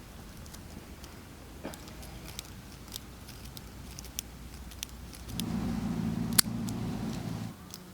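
Scattered small clicks and taps of small objects being handled, then a low steady hum for about two seconds in the second half, with one sharp click in the middle of it.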